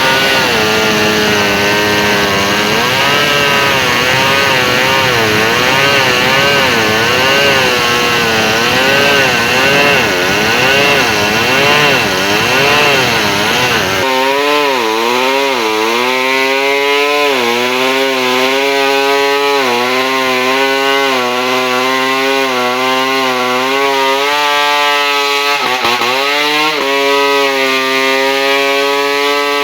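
Two-stroke chainsaw engine running at high revs, its pitch wavering up and down. About fourteen seconds in, the sound turns cleaner and the pitch dips sharply several times before picking back up.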